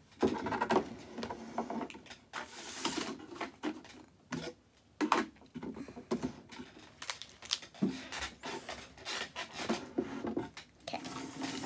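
Plastic felt-tip markers clicking and clattering as they are handled, pushed across the table and dropped into a wire-mesh pen cup. The knocks come irregularly, a few louder ones among many light taps.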